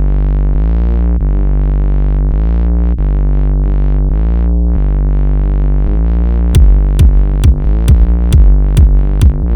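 Electronic-sounding music: sustained synthesizer chords that shift every second or so, joined about two-thirds of the way through by a steady kick-drum beat, roughly two beats a second.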